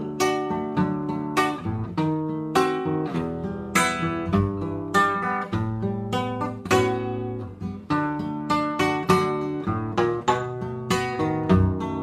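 Classical nylon-string guitar played solo, plucked chords and a picked melody line, each note struck sharply and ringing away.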